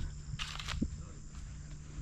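Steady high-pitched buzz of insects, with a couple of crunching footsteps on a dirt path about half a second in and a low rumble underneath.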